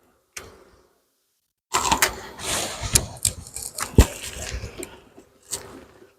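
Beehive equipment being handled: scraping and clattering, with a sharp knock about four seconds in and a lighter one near the end.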